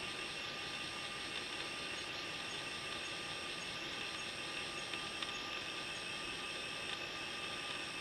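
Evening forest ambience: a high, continuous insect trill that breaks off briefly about every second and a half, over a steady hiss.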